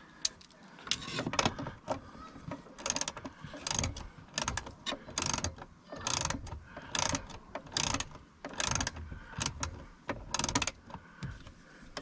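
Hand ratchet wrench clicking in repeated strokes, roughly one stroke a second, each stroke a quick run of pawl clicks, as it runs in the door hinge bolts.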